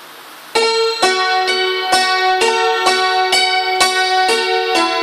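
Thai khim (hammered dulcimer) played with small mallets: a steady melody of struck, ringing notes at about two a second, starting about half a second in.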